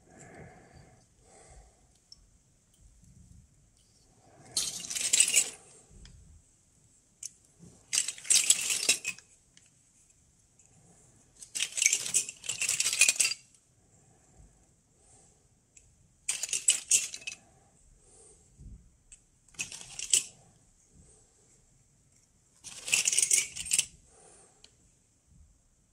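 Small metal Geiger-Müller counter tubes clinking and jingling against each other as a hand stirs through a bagful of them, in about six short bursts a few seconds apart.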